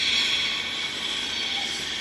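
Electric regional train rolling slowly into a station, a steady hissing rail noise.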